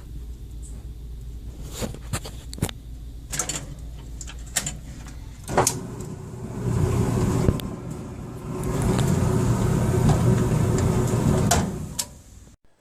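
Clicks and knocks from handling a laundry machine, then a heavy machine being slid and scraped across the floor in two pushes, a short one and a longer one, a loud low rumble.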